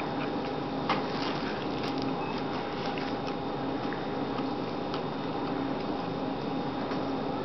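Steady room noise with a faint hum, and a soft click about a second in.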